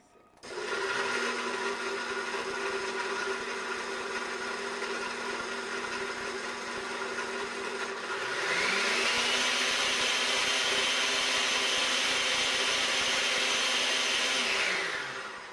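Countertop blender with a glass jar pureeing sautéed onions and garlic in water. The motor starts with a steady hum, shifts up to a higher, louder pitch about eight seconds in, then winds down and stops near the end.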